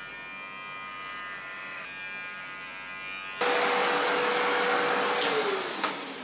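Electric hair clippers buzzing steadily. About three and a half seconds in, a vacuum cleaner switches on loudly and runs for about two seconds. It is then switched off and winds down with a falling whine.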